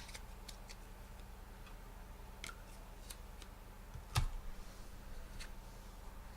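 Scattered faint clicks and taps, with one louder knock a little after four seconds in, over a low steady hum.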